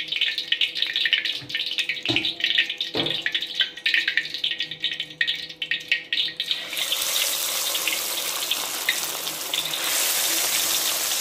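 Hot oil in an iron kadai crackling and spitting, then, about two-thirds of the way in, a sudden loud, steady sizzle as marinated, cornflour-coated chicken pieces go into the oil and deep-fry. The sizzle grows louder again near the end.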